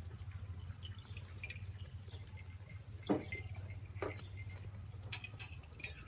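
Goats feeding on cut Napier grass: leaves rustle and stalks snap as they tear and chew, with sharp crunches about a second apart in the second half, over a steady low hum.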